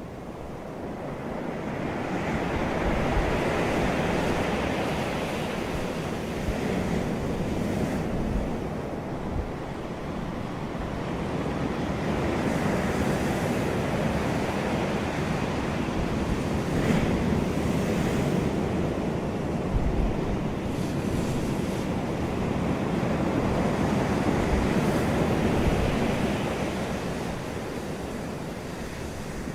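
Ocean surf washing onto the shore, a continuous rush that swells and eases every several seconds, with brief low rumbles of wind on the microphone.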